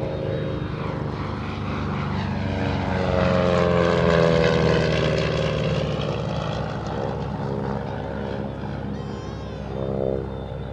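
Single-engine propeller plane making a pass overhead: the engine and propeller drone swells to its loudest about four seconds in, its pitch dropping as it goes by, then fades as the plane climbs away, swelling briefly again near the end.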